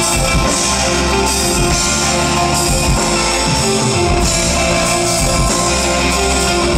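Live rock band playing an instrumental passage through the PA, guitar to the fore over bass and drums.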